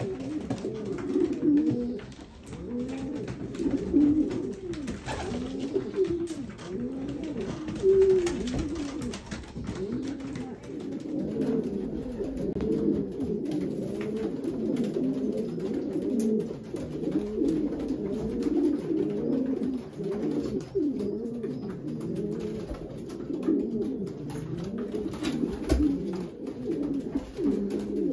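Racing pigeon cocks cooing in the loft, many bowing coos overlapping one another: courtship cooing of cocks that have just been shown their hens. The calls crowd together more densely from about ten seconds in.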